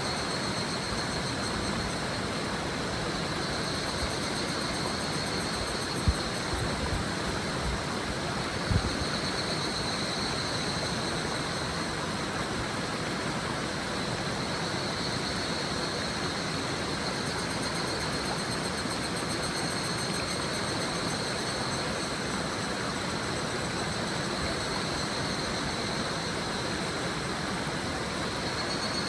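A shallow river babbling steadily, with higurashi cicadas (Tanna japonensis) calling in high, rising-and-fading choruses over it. Two brief low thumps come about six and nine seconds in.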